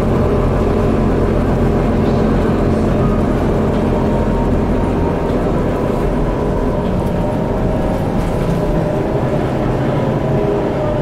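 Cummins ISL inline-six diesel engine and ZF EcoLife automatic gearbox of a Bustech ADi bus running steadily, heard from the rear of the passenger cabin along with road noise. The low engine note eases and its pitch shifts slightly in the second half.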